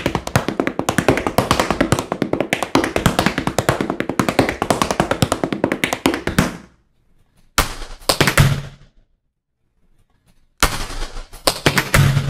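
Metal taps on tap shoes striking a wooden floor in a fast, dense run of beats for about six and a half seconds. After a pause there is a short flurry, then after a second pause another.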